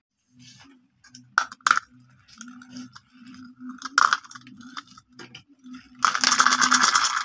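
Glass marbles clicking against each other and a plastic cup. A few single sharp clicks come first, then a dense, rapid rattle of many marbles for about a second near the end.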